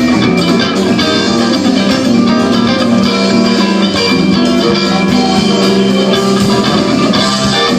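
Live band playing a song, with guitars strummed over a drum kit, loud and steady.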